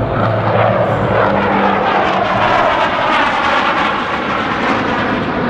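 Chengdu J-10 fighter jets' engines roaring at low level as the two solo jets close head-on, a loud steady rush with slowly sweeping changes in tone.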